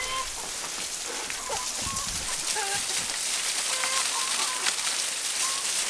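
Water gushing steadily from the open end of a gravity-fed irrigation pipe and splashing down, a hiss that slowly grows a little louder. Short clucks from hens come through at intervals.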